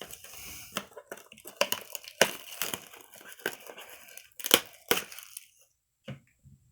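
A blaster box of trading cards being torn open by hand: the packaging crinkles and rips in a quick run of sharp crackles, which stops about five and a half seconds in.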